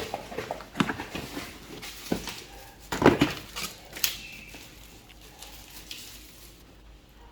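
Boxes and packaged accessories being handled and set down on a hard surface: a quick run of clicks and knocks over the first four seconds, loudest about three seconds in, then quieter handling.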